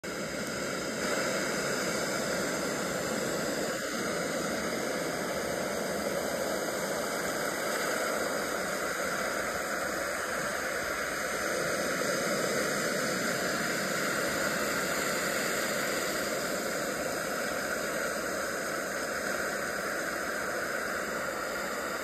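Steady, even rush of ocean surf, with no separate wave crashes standing out.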